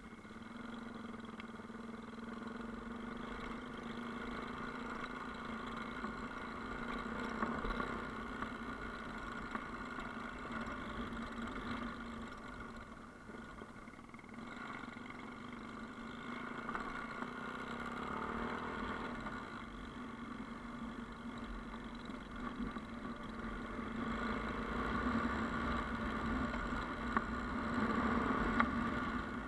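Yamaha Ténéré motorcycle engine running while riding an off-road track, its note swelling and easing with the throttle and loudest near the end.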